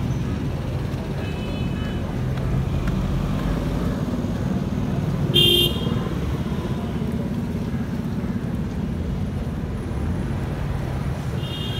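Steady street traffic rumble with short, high horn beeps: a faint one about a second and a half in, a louder one about five seconds in, and another near the end.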